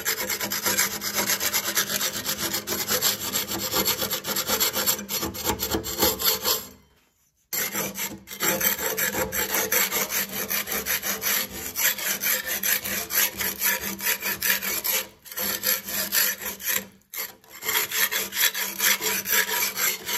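Metal putty knife scraping dried masonry adhesive off the seams of foam-concrete blocks: a continuous rasping scrape, with a brief break about seven seconds in and short pauses later on.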